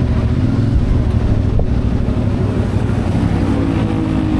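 CF Moto 450MT's parallel-twin engine running at a fairly steady low engine speed, with small rises and falls in pitch.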